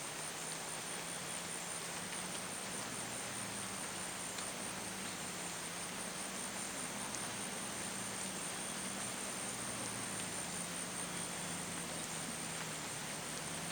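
A vehicle engine running steadily at low revs with an even hum, under a steady high-pitched whine.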